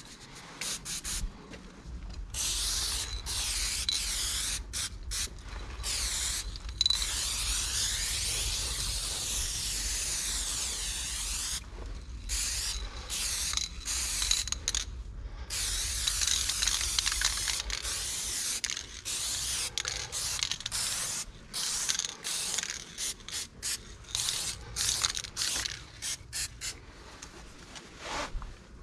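Aerosol spray-paint can hissing in many short bursts and a few longer sprays, the longest about four seconds, as black outlines are drawn over a finished fill.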